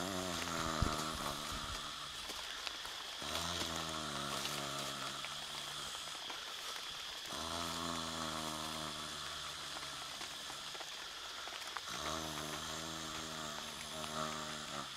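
A sleeping man snoring: long, drawn-out, low snores that repeat about every four seconds.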